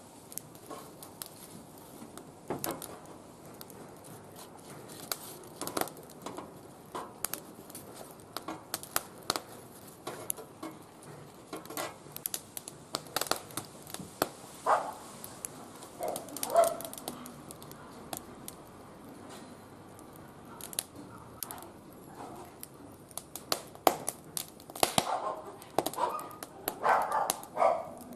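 Wood fire burning in a barbecue grill, crackling with irregular sharp pops. Short pitched cries come in about the middle and again near the end.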